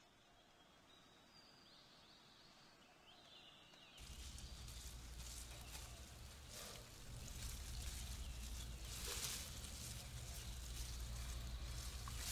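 Faint outdoor nature ambience: a few small chirps high up, then about four seconds in a louder steady rustling hiss with a low hum beneath it comes in and runs on, swelling now and then.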